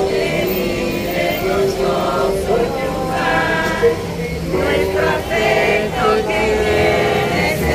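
A crowd of people singing a processional hymn together, several voices on long held notes.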